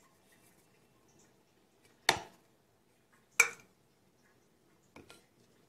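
Two sharp knocks against a bowl, just over a second apart, and a fainter one near the end, as garlic is put into the bowl of chopped liver.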